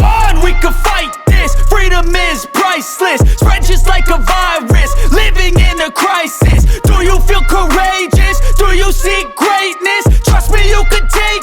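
Hip hop background music with a heavy, repeating bass beat.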